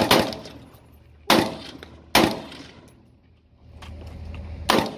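Rifle shots: the tail of a quick string of shots at the start, then three single shots, about a second in, just after two seconds and near the end, each with a short ringing echo.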